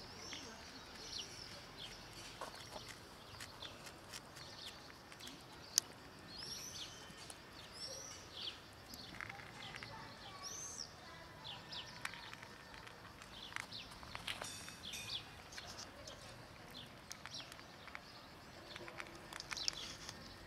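Small birds chirping again and again in short, high, arched calls, with scattered faint clicks from cats eating close by. One sharp click about six seconds in.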